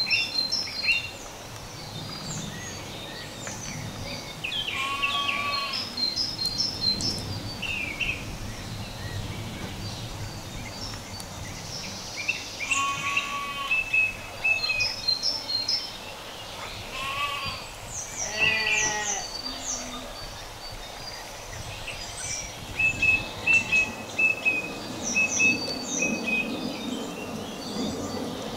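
Small birds chirping and singing throughout, with a few separate bleats from farm animals about 5, 13, 17 and 19 seconds in.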